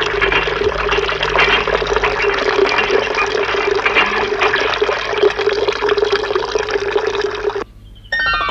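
Water gushing steadily from a tap, a cartoon sound effect with a steady hum under the rush. It cuts off near the end, and a falling, whistle-like glide begins.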